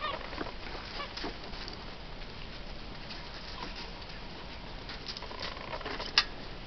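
Standard poodle puppies playing on gravel: short high squeaks and whines, scuffling and clicks, with one sharp click about six seconds in.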